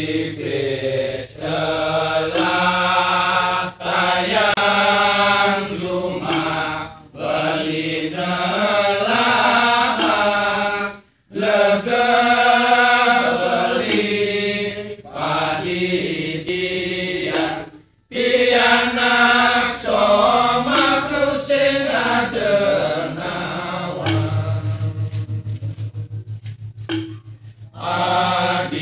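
Balinese genjek: a group of men singing together in Balinese, voices layered in chant-like phrases over a low held note. The phrases break off briefly about 11 and 18 seconds in, and the low note grows stronger near the end.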